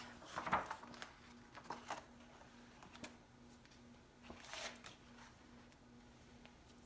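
A picture book being closed and turned over on the floor: soft rustles of paper and cover brushing against the floor, with a few light taps, over a faint hum that keeps cutting in and out.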